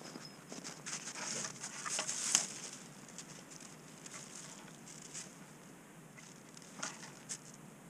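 Snow crunching and rustling with scattered small clicks as a dog moves about in the snow close by. It is busiest in the first couple of seconds, with the sharpest click a little over two seconds in and another near the end.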